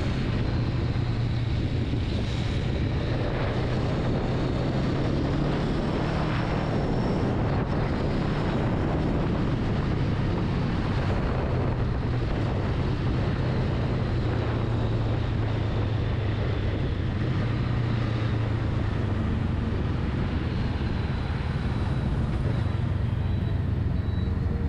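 Honda Rebel 500's parallel-twin engine running steadily while riding, a low even drone with a hiss over it.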